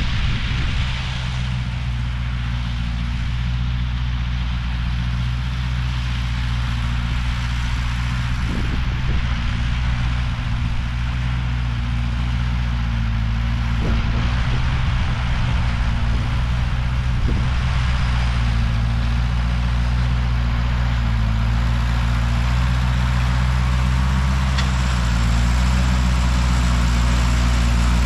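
Ford 8N tractor's four-cylinder flathead engine running steadily, getting a little louder near the end.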